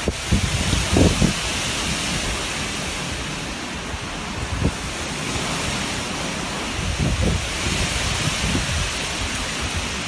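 Strong wind rushing through forest trees, with gusts buffeting the microphone in low thumps about a second in, near the middle, and again around seven seconds in.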